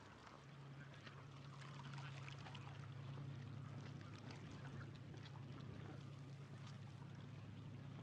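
Faint outdoor ambience: a steady low motor hum, with many small scattered ticks and chirps over it.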